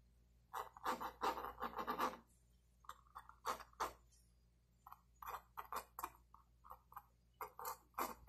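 Mechanical pencil scratching across drawing paper while sketching: a quick run of strokes about half a second in, then a series of shorter, separate strokes.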